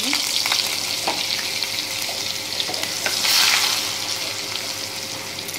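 Butter melting and sizzling in hot oil in a small steel saucepan, stirred with a metal spoon that now and then clicks against the pan. The sizzle swells about three seconds in, then eases off.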